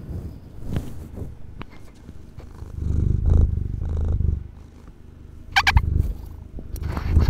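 Domestic cat purring close to a handheld microphone, a low pulsing rumble that swells loudest in the middle, with a few bumps as the microphone is moved. A short high-pitched squeak comes about five and a half seconds in.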